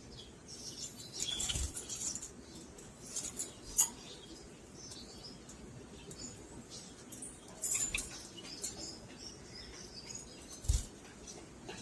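Lovebirds in a cage giving short, high chirps and scratchy calls, with wing flutters. A few sharp knocks stand out, the loudest about four seconds in and near the end.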